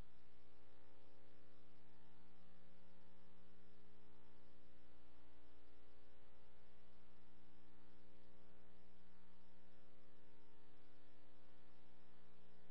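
Low, steady electrical mains hum: a stack of unchanging tones with a faint buzz and hiss under it.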